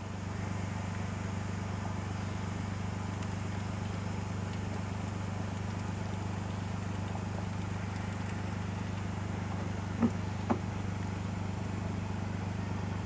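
A steady low mechanical hum, with two sharp knocks about half a second apart about ten seconds in.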